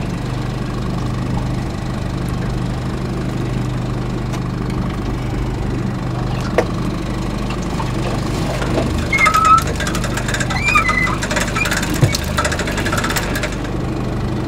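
Boat engine idling steadily with a low, even hum. From about nine seconds in, a few seconds of light clicks and rattles sit on top of it.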